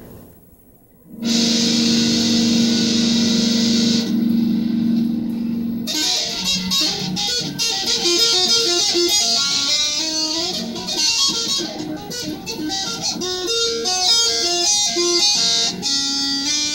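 Electric guitar: after about a second of quiet a chord rings out and is held for several seconds, then a fast run of picked single notes goes on to the end.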